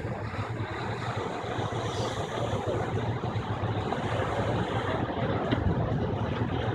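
Surf washing in over beach rocks, a steady rushing noise with a low rumble under it, likely wind on the microphone.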